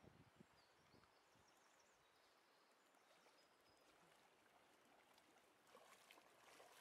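Near silence with faint flowing river water; near the end a dog's legs start splashing as it wades through shallow water.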